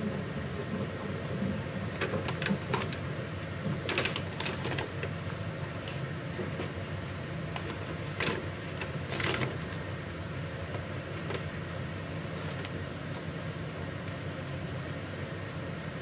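Chicken pieces frying in bubbling sauce in a wok, with a steady sizzle over a low hum. A few sharp spitting pops come about two to five seconds in and again around eight to nine seconds.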